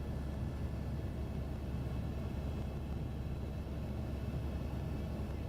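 Helicopter running in flight, heard from inside the cabin: a steady low drone with a constant rotor and engine hum.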